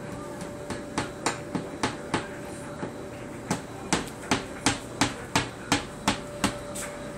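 Claw hammer tapping lightly and quickly, about fifteen light taps at roughly three a second, in two runs with a short pause in the middle.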